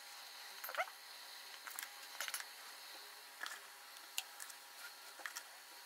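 A few faint, short plops and clicks as cut carrot and potato pieces are dropped by hand into a steel pot of hot water, over a low steady hiss.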